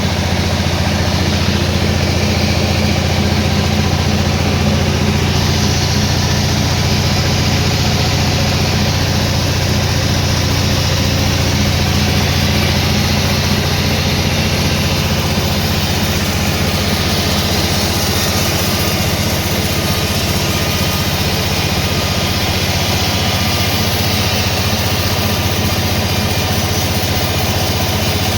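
Sawmill machinery running steadily, a continuous engine-like drone with a hiss over it that grows a little about five seconds in.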